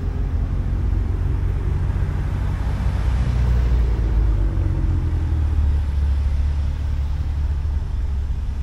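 A Maserati's engine and exhaust giving a steady, deep rumble, with a faint rise in pitch about three to five seconds in.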